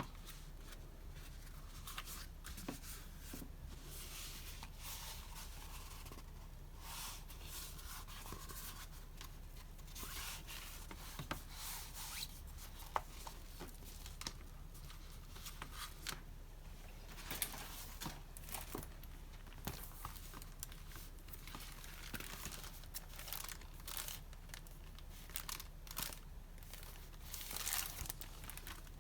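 Paper and wrapping being handled during an unboxing: repeated rustling, crinkling and tearing, with a few sharp ticks.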